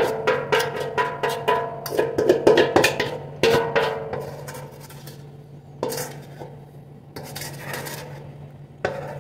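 Spatula scraping cake batter out of a stainless steel mixing bowl: quick repeated strokes against the metal, with the bowl ringing, for the first four seconds or so. After that the scraping turns quieter, with a couple of single knocks.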